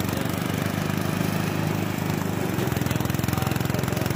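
Small engine-powered rice thresher running steadily while rice stalks are fed in and straw is blown out, its motor going with a fast, even pulse.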